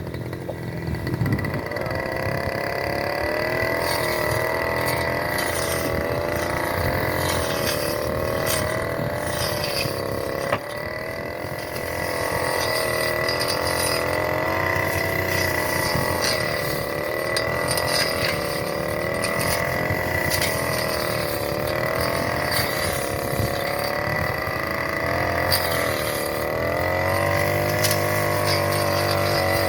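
Small engine of a grass cutter running steadily with a thin high whine, its pitch rising and falling as the load changes, with a brief drop about ten seconds in.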